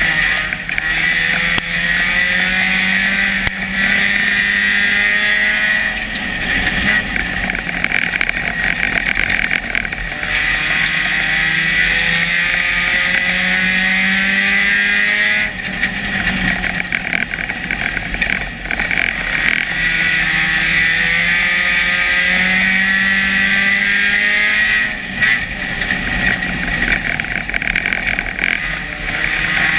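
Dirt-track stock car's engine, heard from inside the cockpit at race pace. It climbs in pitch as it accelerates, then drops off briefly and climbs again, over and over.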